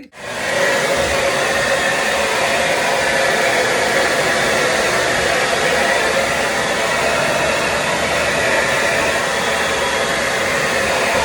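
Hand-held hair dryer switched on and running steadily at one speed, a loud even blowing with a faint whine in it. Typical of drying the bonding glue on quick-weave hair pieces.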